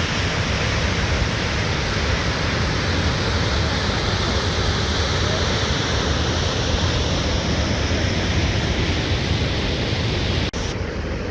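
Steady, dense roar of the Krimml Waterfalls' falling water. About ten and a half seconds in it drops out for an instant and carries on a little duller.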